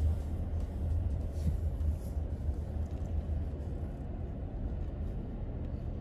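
Steady low rumble of a car moving slowly, engine and road noise.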